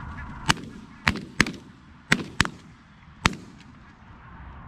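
Six shotgun shots over about three seconds, goose hunters firing at geese coming in over the decoys.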